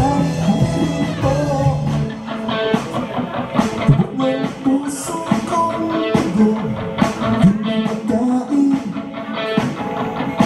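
Live rock band playing: two electric guitars, bass guitar and drum kit, with male singing. A low sustained bass note stops about two seconds in.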